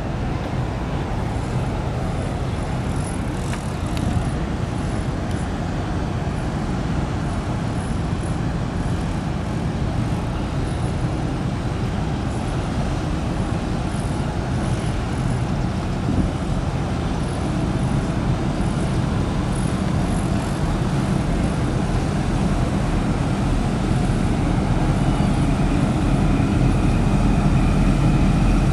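Steady low rumble of ship engines on the harbour water, from a passing container ship and a harbour tug. It grows louder near the end as the tug comes close, with a faint steady whine over it.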